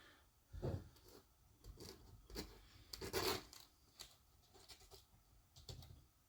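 Faint, scattered clicks and rustles of small metal and plastic RC car parts being handled, as ball bearings are fitted onto a diff drive shaft: about six short scrapes and taps a second or so apart.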